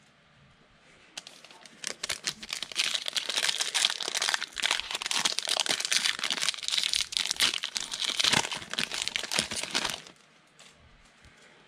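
A foil trading-card pack wrapper, from 2020 Donruss football, being torn open and crinkled off the stack of cards by hand. It is a continuous crackling crinkle with many small ticks in it, starting about a second in and stopping shortly before the end.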